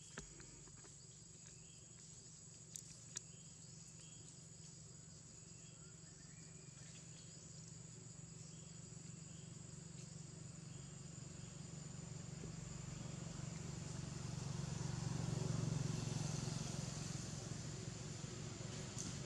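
Outdoor forest ambience: a steady high insect drone with short chirps about once a second, and a low rumble that grows louder through the second half, loudest about three-quarters of the way through.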